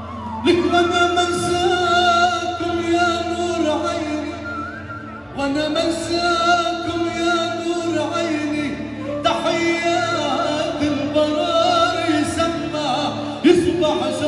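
Male Arabic pop singer singing live over a band, in long held notes with a wavering vibrato, a new phrase beginning about every four seconds.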